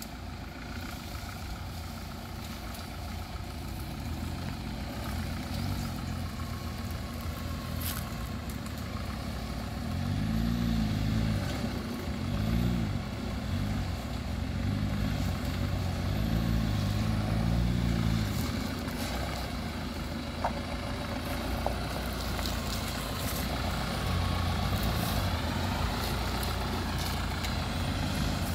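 Mahindra Thar's diesel engine working up a rough off-road climb, a steady low rumble whose revs rise and fall several times as the throttle is worked, about a third to two thirds of the way through.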